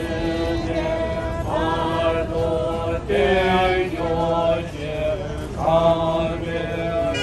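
Group of voices chanting a Tibetan prayer in unison, holding long steady notes in repeating phrases.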